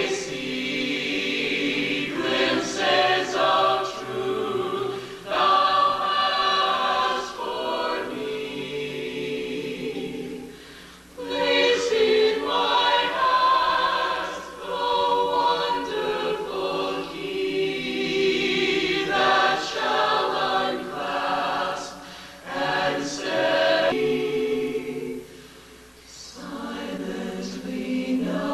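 Choir singing a hymn a cappella, with short pauses between phrases about eleven seconds in and again near the end.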